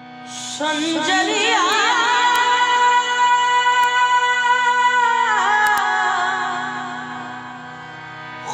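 A devotional song to Khwaja Ji: one voice sings a long, ornamented line over a steady held drone, and the line dies away over the last couple of seconds.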